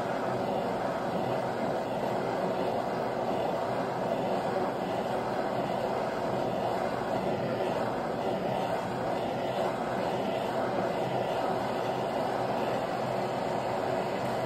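Handheld butane torch burning with a steady rushing hiss as it heats the base of a stainless-steel thermoacoustic Stirling engine.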